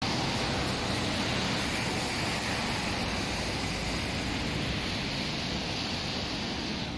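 Road traffic on wet asphalt: a steady hiss of tyres on the wet road over a low engine rumble.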